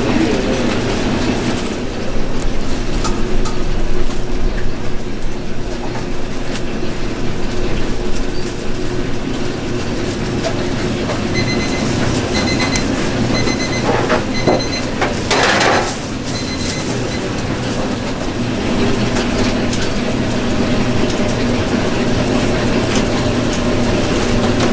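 A steady machine hum from cooking equipment runs throughout. About halfway through, an electronic device gives a run of short beeps in a pattern, and a brief hiss comes over them.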